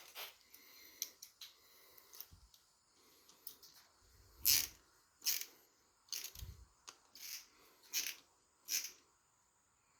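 Small metal parts and hand tools clicking and clinking as they are handled, in an irregular run of sharp clicks with a few dull thumps mixed in.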